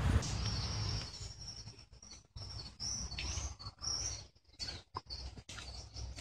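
Small birds chirping: a series of short, high chirps in a row, faint against a quiet background.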